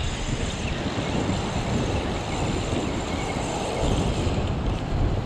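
Wind buffeting the microphone over a steady wash of ocean surf against the rock ledges.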